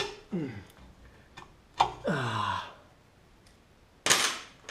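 A man grunting with effort twice, each grunt falling in pitch, as he strains on locking pliers clamped to a seized, rusted exhaust bolt, with small metal clicks from the tool. A short noisy burst comes near the end.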